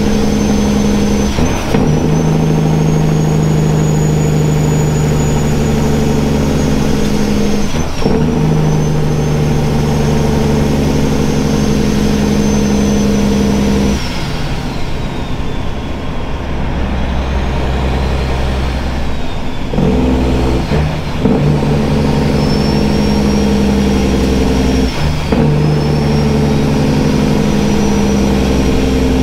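Straight-piped Caterpillar 3406 diesel heard from inside the truck's cab, running under load with a high turbo whistle that rises and dips with it. The engine note breaks off several times as gears are changed on the 13-speed manual. It falls away for a few seconds about halfway through before pulling again.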